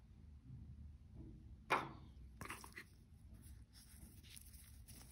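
Small cardboard box and plastic tray handled in an unboxing: one sharp knock about a second and a half in, then faint rustling and light clicks as a white USB charging cable is lifted out of the box.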